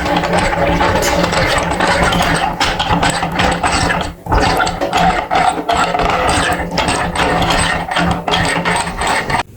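Electric meat grinder running with a steady motor hum under dense crackling and clicking as material is crushed and forced through the plate. It dips briefly about four seconds in, then stops abruptly near the end.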